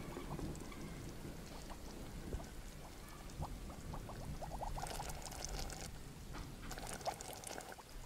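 Liquid bubbling and pouring, with a quick run of small rising bubble plops near the middle and a light fizz.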